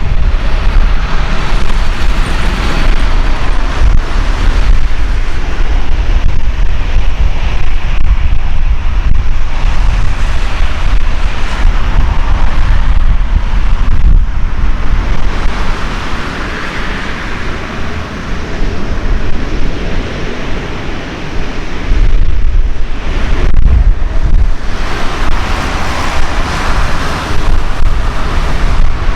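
Jet roar of an Airbus A380's four Engine Alliance GP7200 turbofans at takeoff power, swelling and fading, with heavy wind buffeting on the microphone.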